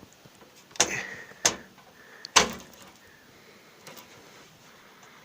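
Hands fitting the front-panel audio connector onto its motherboard header inside a desktop PC case: three sharp knocks and clicks in the first two and a half seconds, then only faint handling.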